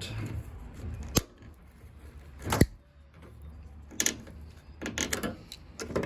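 Pliers gripping and snapping bits off the front of a plastic washing machine drain filter plug: sharp cracks of breaking plastic, the loudest about two and a half seconds in, with a cluster of smaller clicks near the end.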